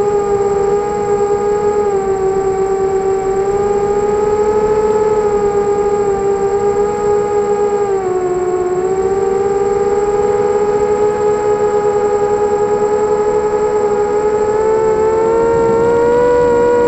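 A drone's electric motors and propellers whining steadily, heard from the aircraft's own camera, with several close pitches sounding together. The pitch dips briefly about eight seconds in, then climbs and wavers near the end.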